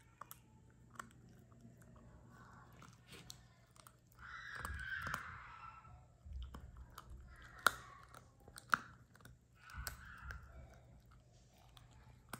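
Puppy chewing a crunchy treat: irregular crunches and clicks of its teeth, with two sharp crunches about a second apart near the middle.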